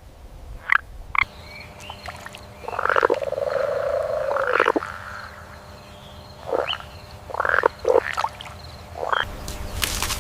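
Frog croaking: a few short croaks, then one drawn-out call lasting about two seconds, then more short croaks spaced a second or so apart.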